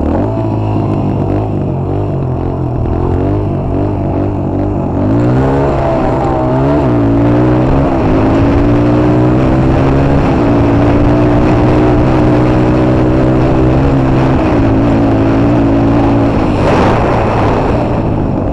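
Motorcycle engine under way off-road, revving up and down with the throttle for the first several seconds, then holding a steady pitch. Near the end the revs drop and there is a short rush of noise.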